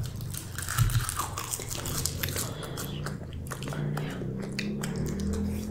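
Mouth sounds of someone chewing food, with many quick wet clicks and smacks.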